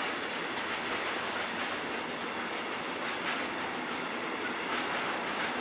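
Intermodal freight wagons rolling slowly past, a steady rumble and hiss of steel wheels on rail with occasional clacks over the rail joints.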